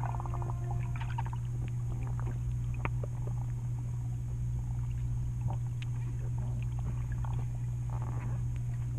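Underwater ambience: a steady low hum with scattered faint clicks and crackles.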